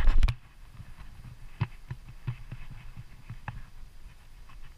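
A loud thump at the very start, then faint, irregular knocks and low thuds on the hull of a clear kayak, the kind made by a paddle shifting and water slapping against the boat.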